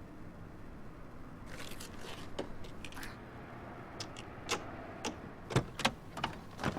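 Irregular sharp clicks and knocks of small objects being handled, with a few louder ones about four to six and a half seconds in.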